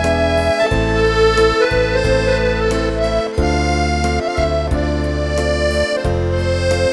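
Accordion playing a slow melody in held notes over sustained bass chords that change about once a second.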